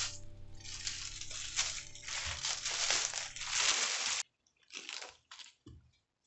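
Rustling and crunching in several short bursts, like food or packaging being handled in a kitchen, over soft background music that cuts out about four seconds in; a few more brief rustles follow in near silence.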